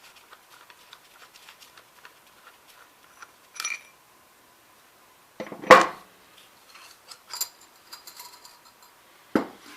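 Steel parts of a Ramset 122MD powder-actuated tool being handled and taken apart: faint small clicks, a clink about a third of the way in, a louder metallic clank a little past halfway, then lighter clicks and a knock near the end.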